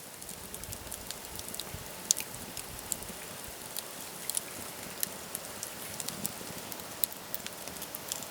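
Rain falling, with scattered drops ticking irregularly and sharply on a surface over a steady soft patter.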